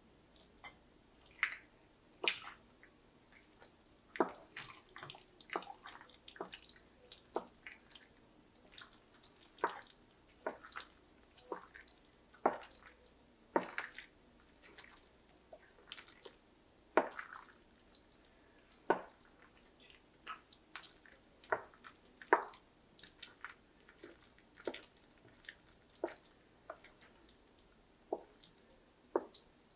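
Wooden spoon stirring thick, cheesy baked macaroni and cheese in a ceramic baking dish: irregular wet squelches and sticky clicks as the sauce and pasta shells are folded.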